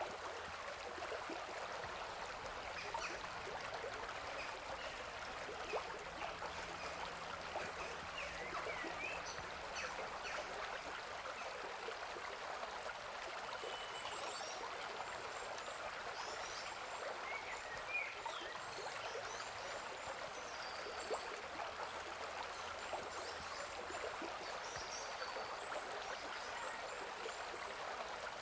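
Steady rush of a rocky forest stream and small waterfall, with scattered brief high chirps over it.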